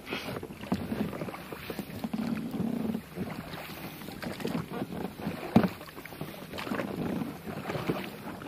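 Oars of an inflatable rowing boat being pulled through choppy water: irregular splashing and sloshing with scattered knocks, the sharpest about halfway through, and wind.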